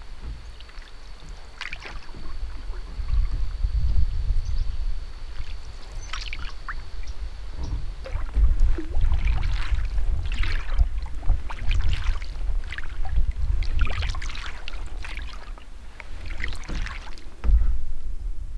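Canoe paddling: the paddle dips and pulls through the creek water in repeated splashy strokes, with drips, about one a second through the second half. A low rumble runs underneath.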